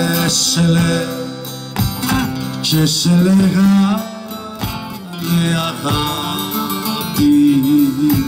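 Live Cretan folk band playing an instrumental passage: plucked string instruments strum a steady rhythm under a melody line of held and gliding notes.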